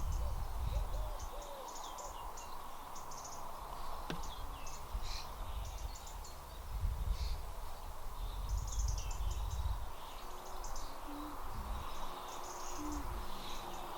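Outdoor birdsong: several small birds chirping and singing throughout, with a few short low calls in the second half, over a low rumble.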